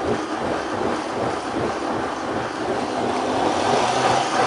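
Countertop blender running steadily, grinding the cooked chiles into the pozole's chile sauce.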